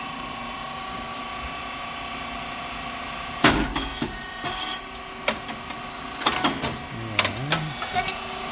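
Puffed rice cake machine (SYP9002, hydraulic) running its cycle: a steady motor-and-pump hum, then a sudden loud pop with a short hiss about three and a half seconds in as the heated mould releases and a cake puffs. A second brief hiss follows a second later, then a run of sharp mechanical clicks and knocks.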